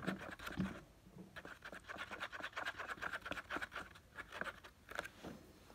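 Rapid scratching and scraping as slime is stirred in a plastic tub, the utensil rubbing the tub's sides, with a short pause about a second in.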